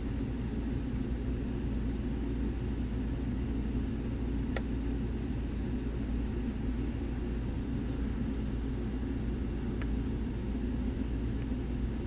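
Steady low background rumble with a few faint clicks, one sharper about four and a half seconds in, from a hook pick working the pins inside a lock held under tension.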